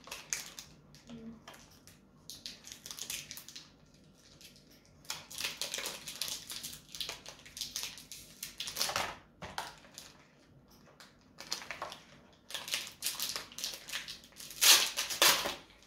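Foil wrapper of a Pokémon card booster pack being torn open and crinkled by hand, in several bursts of crinkling with pauses between them; the loudest comes near the end.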